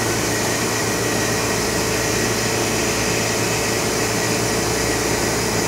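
Steady machine hum and whir of an Oxford Plasmalab 133 ICP plasma etch system running, with a low hum and faint steady higher tones underneath.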